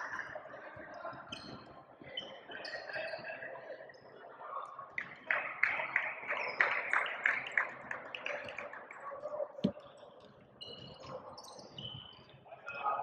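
Basketball gym game sound: scattered voices of players and onlookers. A quick run of sharp taps comes around the middle, and a single low thud of the basketball bouncing comes about two-thirds of the way in.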